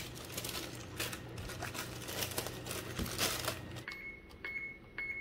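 Crinkling and rustling with scattered small clicks, as of packaging or a bag being handled close by. It drops away about four seconds in, leaving a faint steady high tone.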